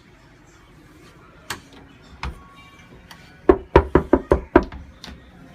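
Knocking: two single knocks, then a quick run of about six loud knocks in just over a second.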